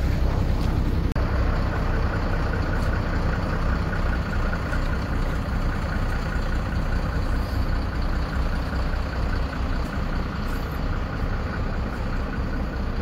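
Truck engine idling steadily, a deep even rumble.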